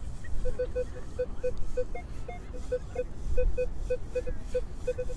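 Minelab Equinox metal detector giving short, mid-pitched beeps as its coil sweeps the ground, a few a second in irregular runs, over a low rumble.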